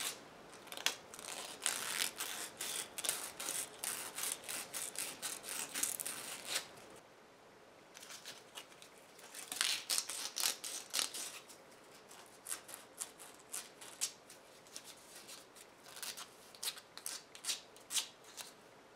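Sandpaper being rubbed by hand over a small 3D-printed plastic ring: quick back-and-forth scraping strokes in runs, with a short pause about seven seconds in. This is the first sanding to smooth away the printer's layer lines.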